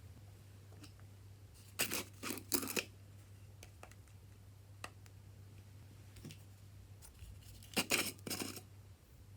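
Slime being stretched and pulled apart, giving two short runs of sticky crackling and tearing sounds, about two seconds in and again near the end, over a faint steady hum.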